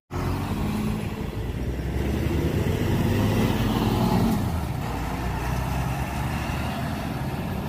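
Double-decker coach bus driving past on a city street: engine and tyre noise that swells to its loudest about three to four seconds in as it passes, then eases off as it moves away.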